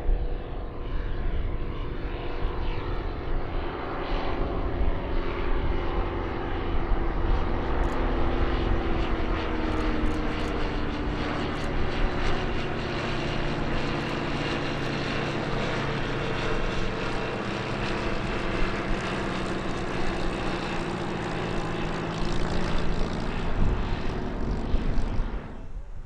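Piston-engined propeller aircraft flying past, its engine note dropping in pitch as it goes by about ten seconds in. The sound cuts off suddenly near the end.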